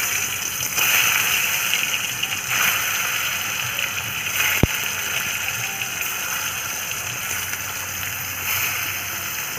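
Pointed gourd (potol) pieces sizzling in hot mustard oil in a kadai, the sizzle surging afresh about a second in, again at about two and a half seconds and near the end as more pieces go in. A single sharp click about halfway.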